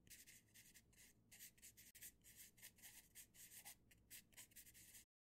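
Faint pencil scratching on paper: short writing strokes in quick, irregular succession, cutting off sharply about five seconds in.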